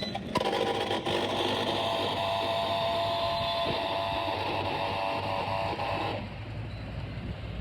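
Very noisy old air cooler running: a loud, steady drone made of several held tones. About six seconds in the higher tones drop away, leaving a lower hum.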